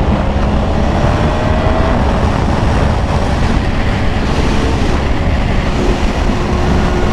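2024 Yamaha R1's crossplane inline-four engine droning steadily under a heavy rush of wind and road noise while riding, with a slight rise in engine pitch in the first couple of seconds.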